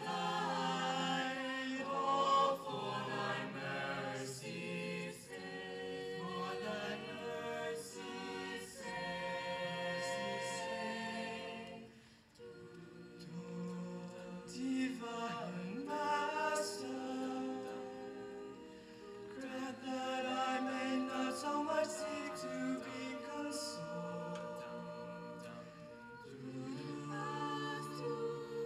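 An a cappella vocal group singing in close harmony, voices only with no instruments, holding chords that shift from phrase to phrase. The singing briefly drops away about twelve seconds in, between phrases.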